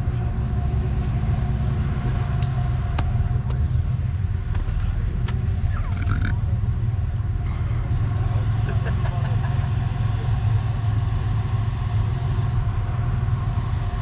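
Off-road truck engine running steadily at low revs, a continuous low rumble.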